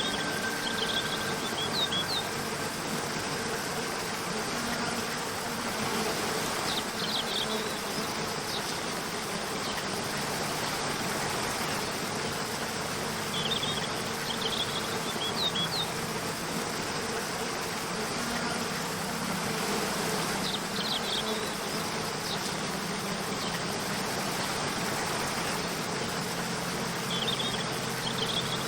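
Steady rush of a waterfall, with soft background music held under it. A short burst of high chirping calls recurs about every seven seconds.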